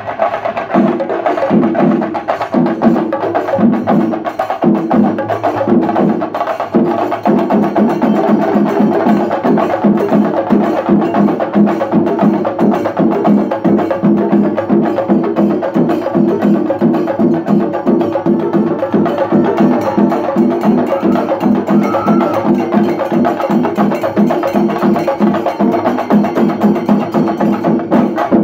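Shinkari melam: a group of chendas (Kerala cylindrical drums) beaten with sticks, with ilathalam cymbals, playing a loud rhythm. For the first several seconds the strokes come slower and spaced, then from about seven seconds in they break into a fast, dense beat.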